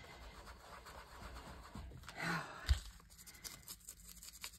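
A sponge loaded with tea-dye ink is rubbed and dabbed along the edges of a sheet of paper, with soft scuffing and paper handling. About two seconds in there is a short breathy voice sound, then a dull thump, the loudest moment.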